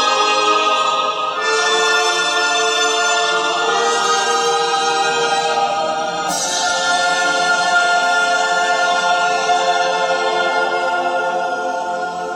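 Choral music with long held chords, changing to a new chord about a second in and again about six seconds in.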